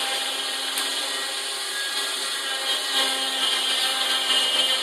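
Coway Juicepresso vertical slow juicer running steadily, its motor humming while the auger crushes pineapple chunks.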